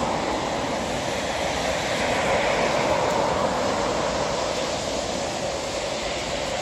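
Steady noise of road traffic, an even hiss of tyres on the road with no single vehicle standing out.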